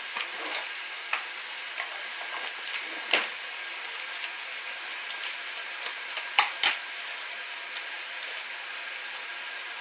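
Steady hiss of a kitchen tap running over canned corn in a colander, with a few short crinkles and taps as a seasoning packet is handled, the sharpest about three seconds in and a pair a little after six seconds.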